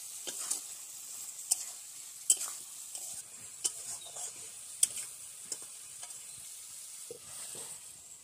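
Steel spatula scraping and clinking against a black iron kadai while stirring a thick curry, about once a second. A steady sizzle runs underneath as the curry cooks.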